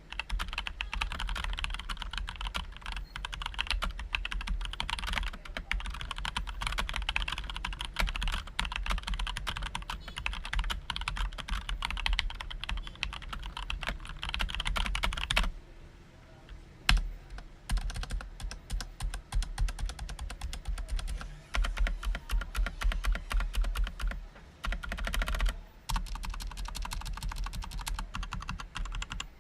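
Continuous fast typing on a mechanical keyboard with Gateron Brown tactile switches and ABS keycaps: a dense stream of keystroke clacks that stops for a second or two about halfway through, then picks up again.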